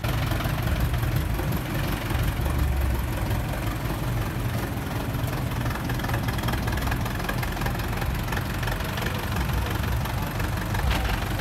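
HMT 5911 tractor's stock diesel engine running steadily at low revs as the tractor drives slowly, a deep rumble with a knocking beat.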